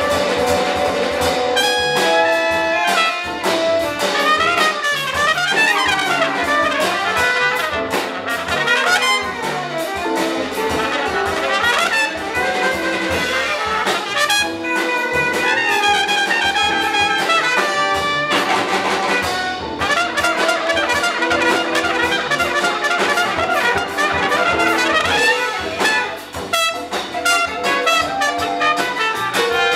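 Live jazz combo: a trumpet and a tenor saxophone playing fast, winding melodic lines over upright bass, drums and electric guitar.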